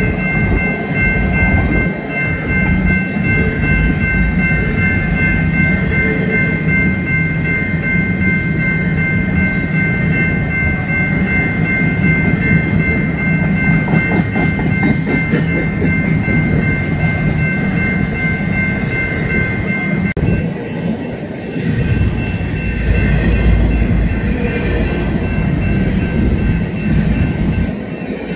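Empty freight well cars rolling past at track speed: a continuous low rumble and rattle of wheels on rail. A steady high ringing tone runs through most of it and stops about two-thirds of the way in, after which the low rumble swells for a few seconds.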